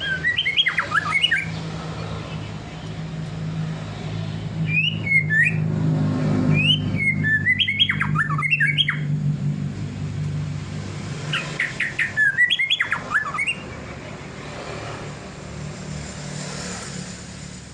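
Murai songbird singing four bursts of rapid, swooping whistled notes with pauses between them, over a steady low mechanical hum.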